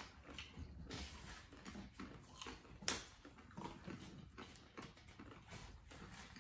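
Close-up eating sounds: chewing, lip-smacking and the crunch of corn tostada chips, in irregular small clicks, with one sharper crack about three seconds in.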